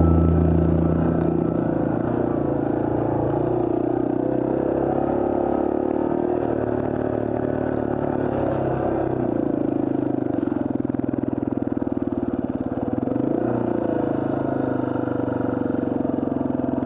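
Yamaha TW200's single-cylinder four-stroke engine running steadily, with small rises and falls in pitch.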